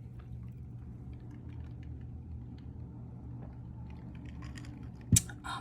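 Faint small clicks and light rustling of jewelry being handled on a desk, over a steady low hum, with one sharp click about five seconds in.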